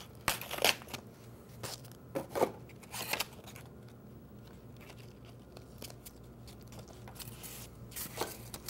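Self-adhesive sandpaper being handled: a few short crinkling, peeling rustles of the paper and its backing in the first three seconds, then faint rubbing as the sheet is pressed into the wooden cove.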